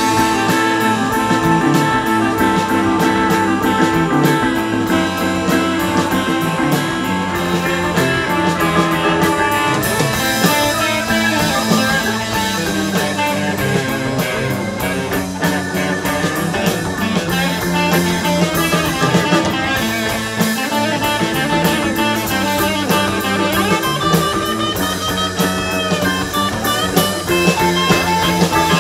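A live rock band playing a song, guitars and drum kit to the fore over bass and keyboard.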